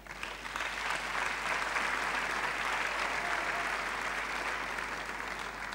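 Audience applauding: a steady round of clapping from a large crowd that swells in the first second and eases off slightly near the end.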